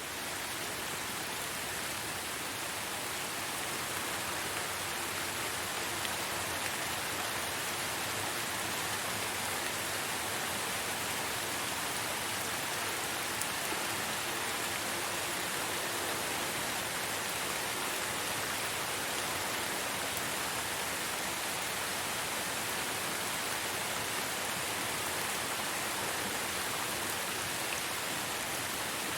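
Steady rain falling, an even hiss that keeps up without change.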